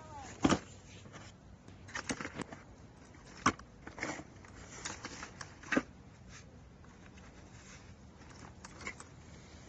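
Aluminium garden hand tools knocking and clinking as they are handled and slotted into a fabric carrying tote. It is a string of about half a dozen irregular sharp clicks and knocks.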